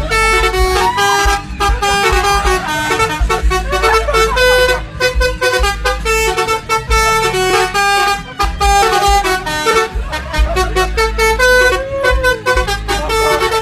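Bus telolet horn, a multi-tone air horn, playing a tune of short held notes one after another over a low rumble.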